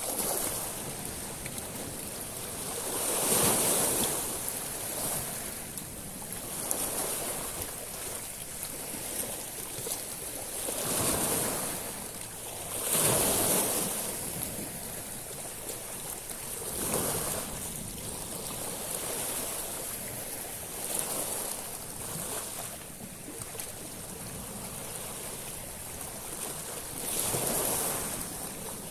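Sea waves breaking and washing over a shingle beach of small stones, rising in surges every few seconds over a steady hiss of surf.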